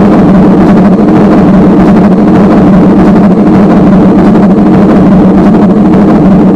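Loud, steady electronic drone from a modular analogue and digital live rig: a low hum with overtones under a dense noisy texture, sounding much like engine noise, with no beat.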